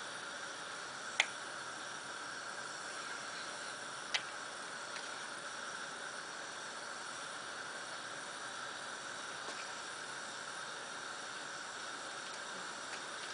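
Linseed oil at about 240 °C bubbling in a glass beaker over a gas burner: a steady hiss, with two sharp clicks about one and four seconds in.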